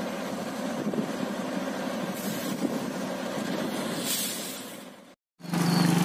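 Diesel locomotive of a passenger train running steadily, a low rumble with a noisy hiss, fading out about five seconds in. After a brief silence, a motorcycle engine idles with a steady hum near the end.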